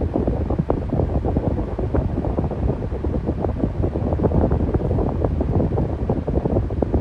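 Electric fan running steadily, its airflow buffeting the microphone into a low, fluttering rumble.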